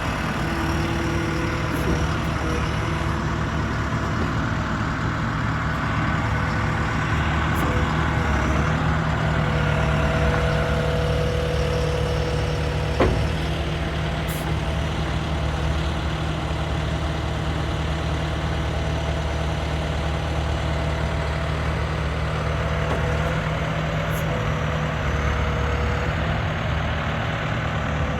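John Deere 410J loader backhoe's four-cylinder diesel engine running steadily, building a little in the middle, with a single sharp clunk about halfway through.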